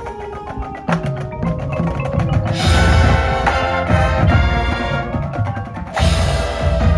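High school marching band playing its field show, with mallet percussion such as marimba and bells and drum hits to the fore. Louder full-band swells come about a third of the way in and again near the end.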